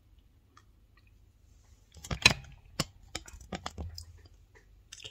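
Handling noise: a cluster of sharp clicks and knocks from objects being moved about, the loudest a little over two seconds in, with one more click near the end.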